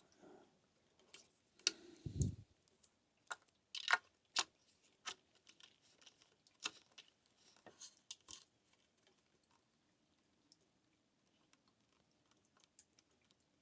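Irregular small clicks and taps of hands and tools working on cable terminals as wires are fastened to a charger's terminals, with a low thump about two seconds in. The clicking thins out after about eight seconds.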